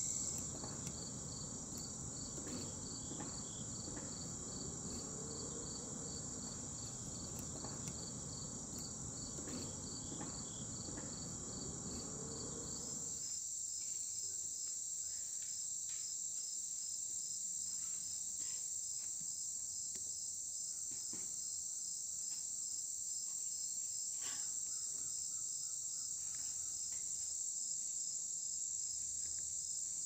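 Summer insects chirring outdoors: a continuous high-pitched trill with a second, quickly pulsing chirp just below it. A low, rumbling background haze stops abruptly about thirteen seconds in, and a few faint clicks and knocks are scattered through.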